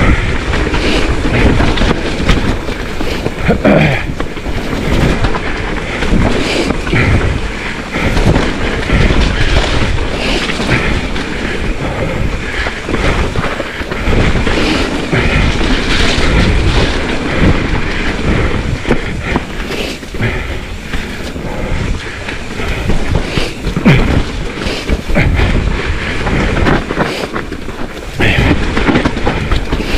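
Mountain bike ridden at speed down a rough trail: tyres rumbling over the ground with constant irregular rattling and knocking from the bike.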